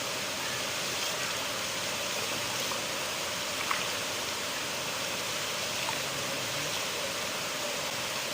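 River water flowing steadily, a continuous even rush, with a couple of faint brief ticks about four and six seconds in.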